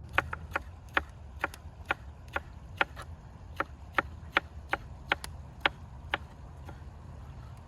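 A knife chopping vegetables on a cutting board in a steady rhythm, about two strokes a second, stopping about six seconds in.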